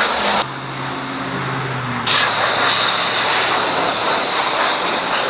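Self-serve car wash high-pressure rinse wand spraying water onto a motorcycle, a loud steady hiss that stops about half a second in and starts again about two seconds in. While the spray is off, a low steady hum is left.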